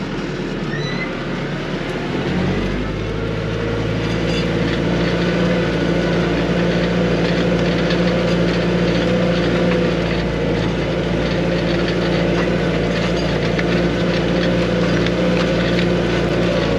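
Arbos 3055 tractor engine running under load, heard from inside the cab, as it pulls a disc harrow through wet soil. The engine note grows a little louder and steadier about two seconds in.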